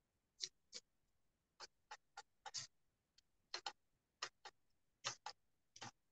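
Faint, irregular clicks and taps of a spatula pressing and stirring a mashed-potato and pea filling against a steel pan, often in quick pairs, about two a second.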